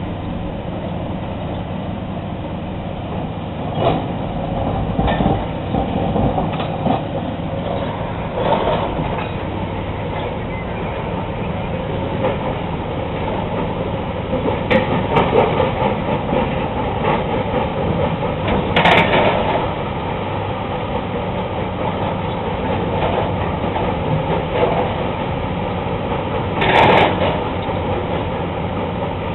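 Rock crusher running steadily: a continuous mechanical rumble with an engine hum beneath it, broken by several short louder clatters, the strongest about two-thirds of the way through and near the end.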